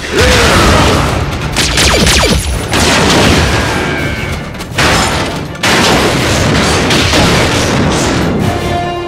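Sound effects of giant robots fighting: heavy booms and metal crashes, with sudden hits at the start and again about three, four and three-quarters and five and a half seconds in, over a dramatic music score.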